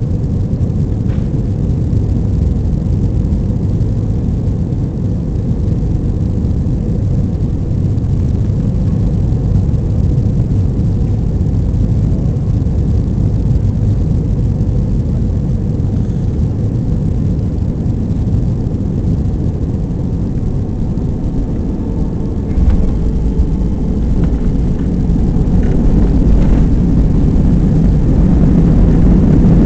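Airbus A320 cabin noise heard from a window seat over the wing: the steady rush of engines and airflow on final approach. About three-quarters of the way through comes a sudden thump and a deeper rumble as the main wheels touch down, and the noise then keeps building as the airliner rolls out on the runway.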